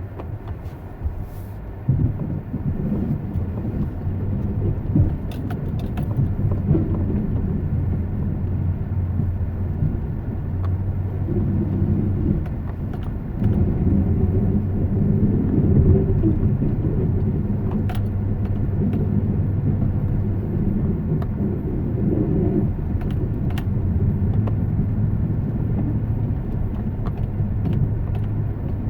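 A motor vehicle running, a steady low engine hum and rumble that grows louder about two seconds in and again about halfway through, with a few faint clicks.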